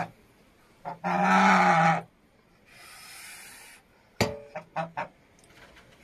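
Domestic goose calling: a short call, then one loud drawn-out honk lasting about a second, a quieter breathy hiss, and a few short clipped calls near the end.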